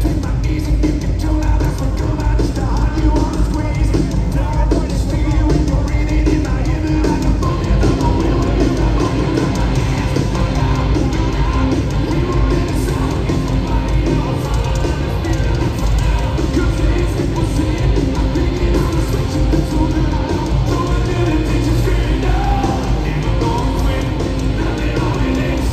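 Live hard-rock band playing at full volume: distorted electric guitars, bass and drums driving steadily, with a singer over them, heard from among the audience.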